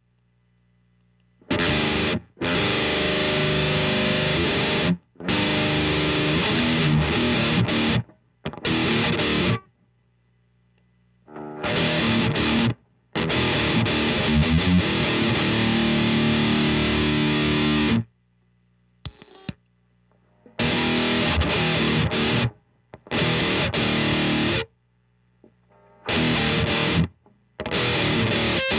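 Electric guitar played through a ThisHeavyEarth Grim distortion pedal: heavy, high-gain riffs in stretches of one to five seconds, each stopped dead into silence. A faint low hum sits under several of the gaps.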